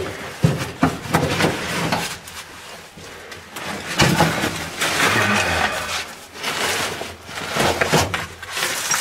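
Caving gear scraping and rustling against rock as a caver crawls through a tight passage, with irregular knocks and clatters of equipment.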